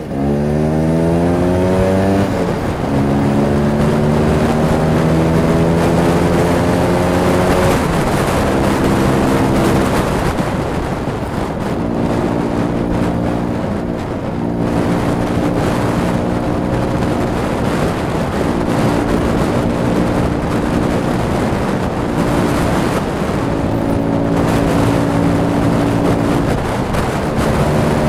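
Vespa scooter's swapped-in P200E 200cc two-stroke engine pulling under way, rising in pitch through the gears. The pitch drops at shifts about two and eight seconds in, then holds a fairly steady cruise with small rises and falls, and climbs again near the end.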